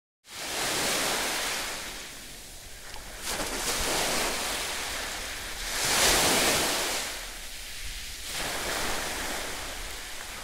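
Small sea waves washing onto a beach, a rushing noise that swells and eases every two to three seconds, cutting in suddenly after a brief silence.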